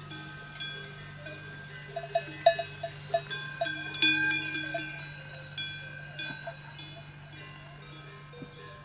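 Bells clanking irregularly, like cowbells on grazing livestock, with ringing tones that hang on after each strike. The strikes come thickest about two to four seconds in, over a steady low hum.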